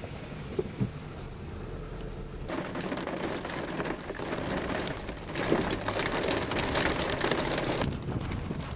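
Heavy thunderstorm rain, a dense hiss of drops. It comes in suddenly about two and a half seconds in and grows louder in the second half.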